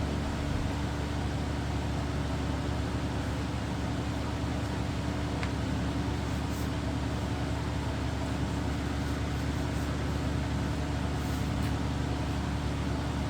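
Window-unit air conditioner running: a steady hum from its compressor and fan, with a few low steady tones.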